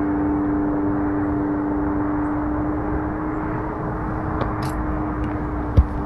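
Steady engine drone with a constant low hum, and a single thump near the end.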